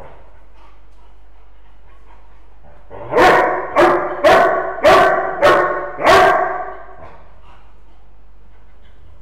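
A dog barking six times in quick succession, about two barks a second, starting about three seconds in.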